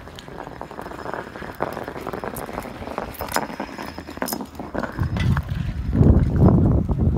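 A rock scraping and knocking along asphalt as a Border Collie pushes it with her nose, in scattered short scrapes and clicks. A louder low rumble comes in near the end.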